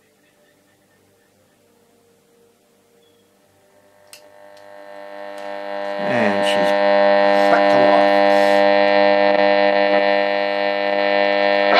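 1958 Stromberg-Carlson 48A11 valve radio's loudspeaker coming alive as its valves warm up. Near silence at first, then a hum swells over about two seconds to a steady, loud level, with a few wavering whistles as it settles.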